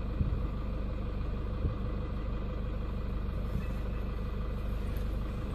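Safari vehicle's engine idling with a steady low rumble. Two brief sharp sounds, just after the start and about a second and a half in, are the spotted hyena tearing at the hippo carcass.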